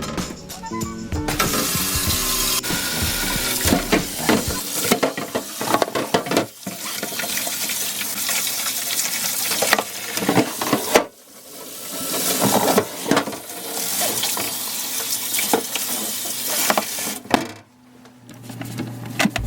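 Kitchen tap water running into a sink, with scattered knocks and clatter of things being rinsed. The flow stops briefly about eleven seconds in and again near the end.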